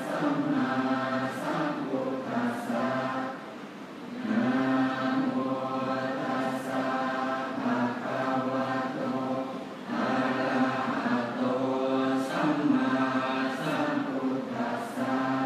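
Group of Thai Buddhist monks chanting the morning service together in unison, on a near-steady pitch. The chant breaks briefly for breath about four seconds in and again near ten seconds.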